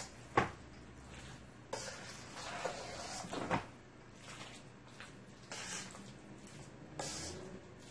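Metal spoon stirring and folding potato salad in a stainless steel mixing bowl: soft scraping, with two sharp clinks of the spoon against the bowl, about half a second in and again a few seconds later.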